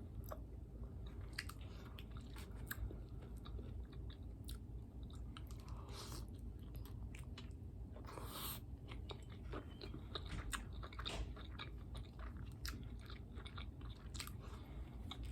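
A person chewing a taco close to the microphone: a steady run of small wet mouth clicks and smacks, with two longer hissy sounds about six and eight seconds in.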